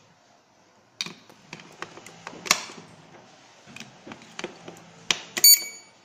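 AA batteries clicking and knocking as they are pressed into the plastic battery holder of an electronic RFID cabinet lock, then a short high beep from the lock near the end as it powers up with the batteries in.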